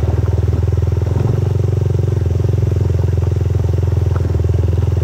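Motorcycle engine running steadily while riding, loud and close, with an even low pulsing note that holds throughout.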